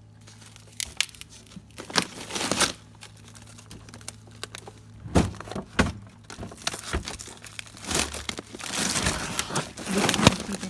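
Plastic bags of frozen food crinkling and rustling as they are handled, with irregular knocks and clatters, in several loud spells over a steady low hum.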